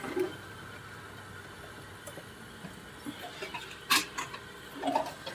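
Pliers and hands working hose clamps in a car's engine bay: a few faint handling clicks over a low steady hum, with one sharp click about four seconds in.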